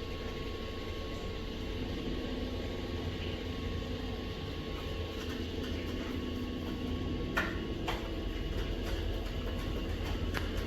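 Dreame D10S Plus auto-empty base station's suction motor running steadily, pulling debris out of the robot vacuum's dustbin into the dock's bag. Two short clicks come about seven and a half seconds in, half a second apart.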